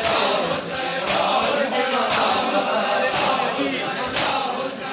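Crowd of men chanting a noha together in a Shia mourning procession, with a sharp chest-beating stroke of matam about once a second.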